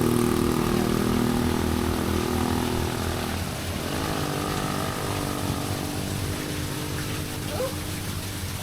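Vehicle engine running and fading away, its pitch changing about three and a half seconds in.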